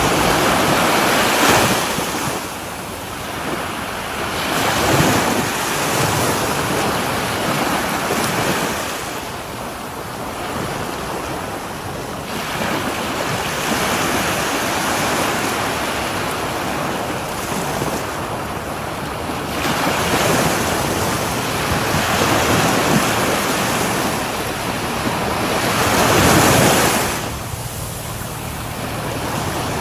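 Sea waves breaking and washing up the shore, the surf rising and falling away every few seconds, with one of the strongest swells near the end.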